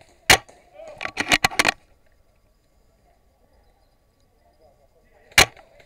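Spring-powered VSR-10 bolt-action airsoft sniper rifle: a sharp shot about a third of a second in, then a quick run of clicks as the bolt is worked, and a second sharp shot near the end.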